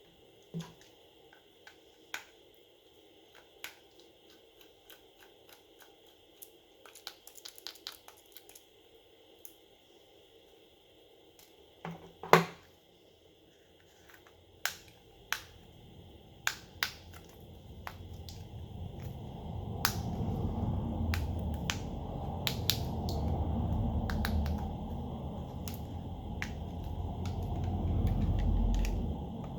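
Small sharp clicks and taps of tools and parts on a phone being taken apart, one loud click about halfway through. In the second half a louder low rumbling noise builds and holds.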